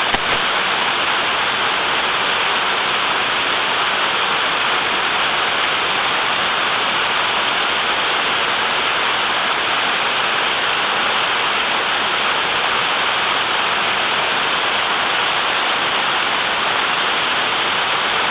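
Small waterfall rushing steadily, a hard, unbroken flow of falling water.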